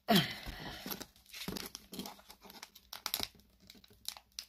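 Foil Pokémon card booster pack crinkling and tearing in scattered crackles as hands strain to pull open its tight, stubborn seal. Right at the start comes a short falling grunt-like sound, the loudest moment.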